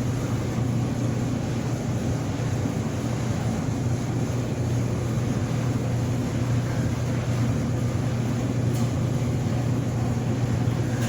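Steady low machine hum with a constant rushing noise over it, unchanging throughout.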